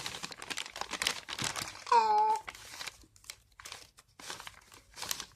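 Wrapped cough drops and their wrappers crinkling as five are picked out and handled, in quick irregular crackles that thin out in the second half. A short vocal sound about two seconds in.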